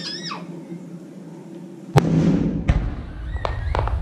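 Aerial firework shell bursting with a sudden sharp bang about two seconds in, its boom rumbling on, followed by several smaller cracks.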